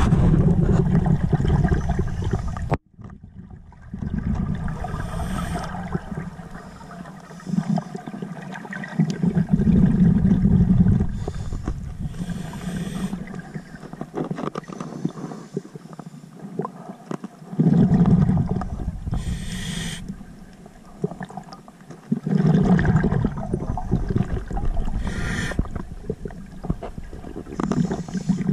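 Scuba diver breathing through a regulator underwater: slow breaths, each with a short hiss on the inhale and a gurgling rush of exhaust bubbles on the exhale. The sound drops out abruptly for a moment about three seconds in.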